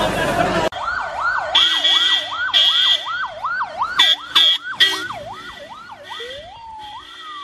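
Emergency vehicle siren in a fast yelp, about three up-and-down sweeps a second, slowing to longer wailing sweeps near the end. Several short horn blasts sound over it, the loudest around four to five seconds in. Crowd noise cuts off under a second in.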